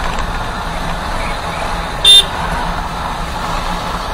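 Motorcycle running along the road at steady speed, with steady engine and wind noise, and one short, loud horn beep about two seconds in.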